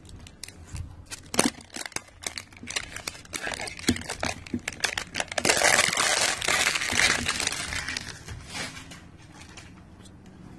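Fingers scratching and picking at a cardboard phone box's seal, with small clicks and scrapes, then a louder stretch of crinkling and tearing about halfway through as the seal comes away. The sound quietens to light handling of the box near the end.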